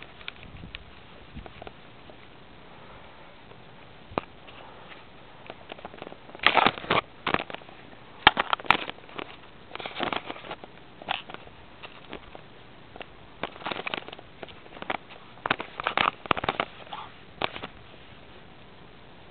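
Irregular rustling and scuffing from someone climbing a willow tree, mixed with handling noise on the camera. Short noisy bursts come in clusters, starting about six seconds in and stopping near the end.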